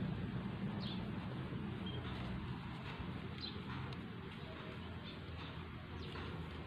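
Low steady outdoor background with a few faint, short bird chirps scattered through.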